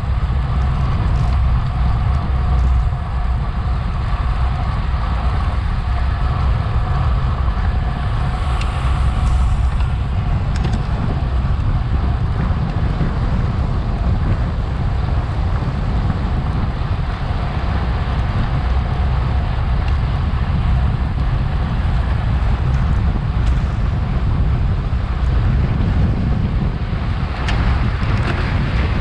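Wind buffeting an action camera's microphone on a bicycle at racing speed, a steady rumble.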